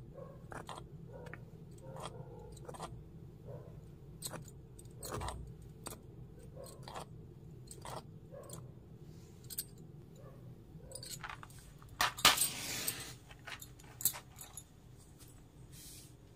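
A small steel spoon clinking and tapping against a miniature clay pot while stirring thick batter, in short scattered clicks. About three quarters of the way through comes a louder rasping burst lasting under a second.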